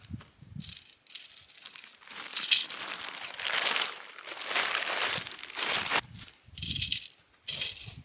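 Black plastic sheeting and tent fabric crinkling and rustling in irregular bursts as a tent is lifted out, shaken and dropped on the ground.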